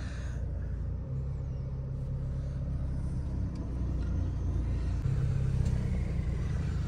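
Steady low rumble of a Mercedes-Benz car's engine and road noise, heard from inside the cabin, getting a little louder about five seconds in.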